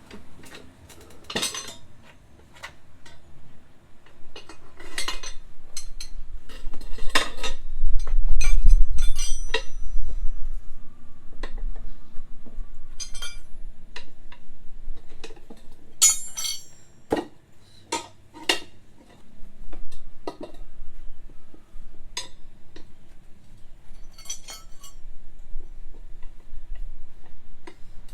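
Metal tools clinking and clanking irregularly against a scooter's front wheel rim as the tyre bead is levered over it by hand. A duller, louder rubbing thump comes about eight seconds in.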